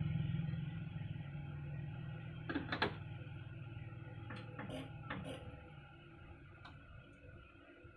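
Old Ruston Hornsby diesel engine running down, its low rumble fading steadily. A few sharp clanks come between about two and a half and five seconds in.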